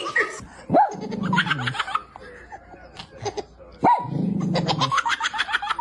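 A comic sound effect played twice, about three seconds apart: each time a quick yelp that rises and falls, then a pulsed, growl-like tone sliding downward.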